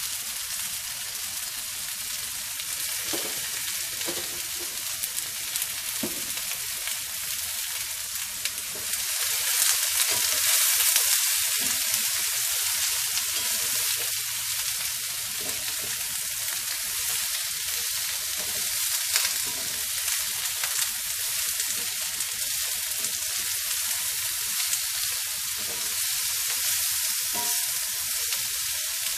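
Sliced vegetables sizzling in a little canola oil in a nonstick frying pan over high heat, stirred and scraped with a spatula. The sizzle swells louder about nine seconds in, then settles to a steady hiss.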